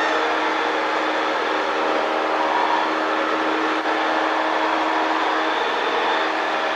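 Cessna 152's four-cylinder Lycoming O-235 engine and propeller at full takeoff power, a steady drone heard from inside the cockpit during the takeoff roll and climb-out.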